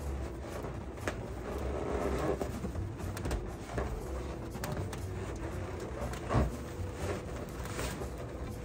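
Latex balloons rubbing and squeaking against one another as a cluster is pressed and twisted into place on a balloon column. There are scattered light knocks and clicks, the loudest about six seconds in.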